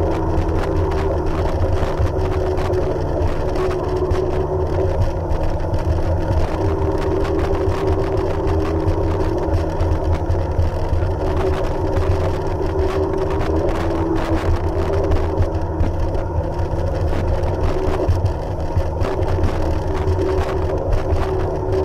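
Jet ski engine running at a steady speed, a constant drone with a steady hum.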